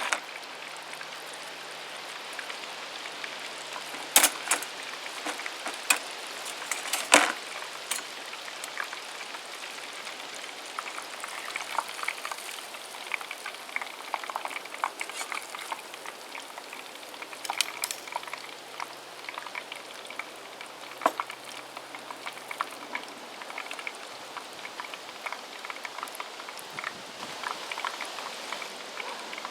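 Cornish game hen deep frying in hot peanut and soybean oil in a Fry Daddy electric deep fryer: a steady bubbling sizzle with constant small crackles and a few sharper pops, the loudest about four and seven seconds in.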